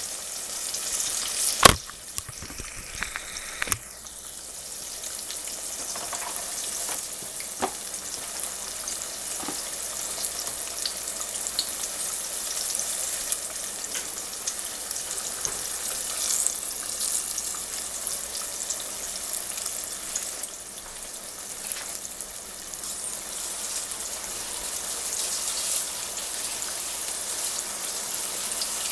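Flour-dredged squash slices deep-frying in hot oil: a steady sizzle, with one sharp knock about two seconds in and a few lighter knocks after it.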